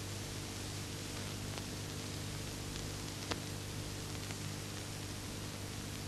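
Steady hiss and hum of an old optical film soundtrack, with a single sharp click about three seconds in.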